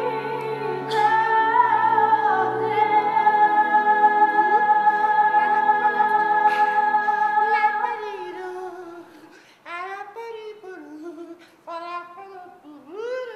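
Music: a sung operatic-style melody on long held notes over an accompaniment, giving way after about eight seconds to short swooping vocal phrases with gaps between them.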